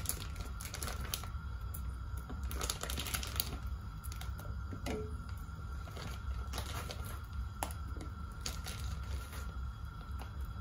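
Mini corn cobs dropped one after another into a pot of water, giving a series of splashes and knocks against the pot, over a steady low hum.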